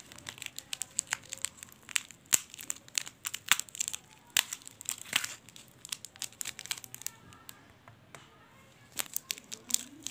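Shiny foil snack sachets of chatpata churan crinkling and crackling as they are handled, in quick irregular bursts. A quieter stretch comes in the middle, and the crackling picks up again near the end.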